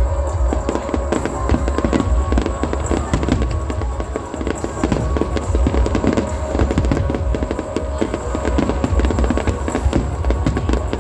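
Fireworks display: aerial shells and comets bursting, with dense bangs and crackling all the way through. Music plays along underneath.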